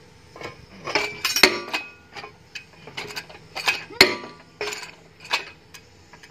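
Repeated metal-on-metal blows, a steel bar striking the steel bearing housing on a jaw crusher's shaft to knock the bearing loose during a bearing change. There are about one or two sharp clanks a second, several of them ringing briefly, and the loudest comes about four seconds in.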